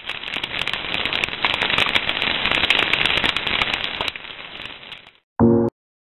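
Crackling fire-and-sparks sound effect: a dense, continuous crackle of many small pops that swells and then fades out after about five seconds. It is followed by a brief, loud pitched tone that stops abruptly.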